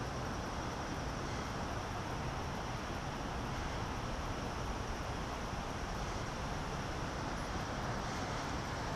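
Steady outdoor background noise: an even rush with no distinct sounds standing out.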